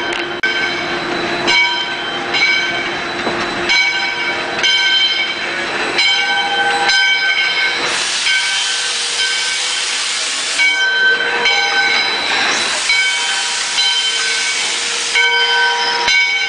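Steam locomotive moving slowly, its bell ringing about once a second. Loud steam hiss breaks in about eight seconds in and again about twelve and a half seconds in, each lasting two to three seconds.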